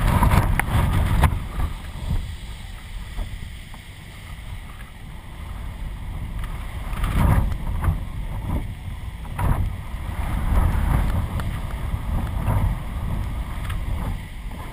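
Strong gusty wind buffeting the microphone of a camera mounted on a flying kite, a low rumbling rush that surges and eases with the gusts. It surges hardest near the start, again about seven seconds in, and around ten to eleven seconds.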